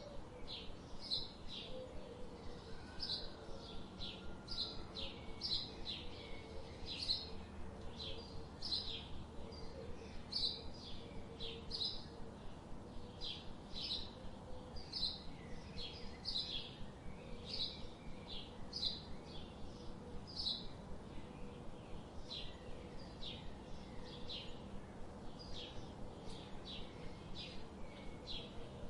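A bird chirping over and over, short high calls coming about twice a second in an irregular rhythm, over a faint steady background hum.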